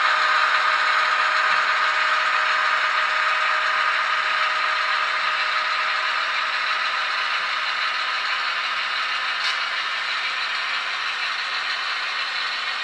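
Athearn GP38-2W model locomotive's onboard sound decoder playing a diesel engine sound through its small speaker, fading slowly as the locomotive runs away along the track.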